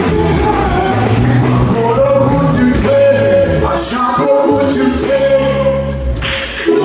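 Live gospel praise music with group singing over sustained bass notes and a few bright cymbal-like percussion hits.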